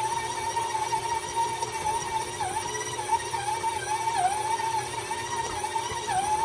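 KitchenAid stand mixer running as its dough hook kneads bread dough: a steady motor and gear whine whose pitch dips briefly a few times as the dough drags on the hook.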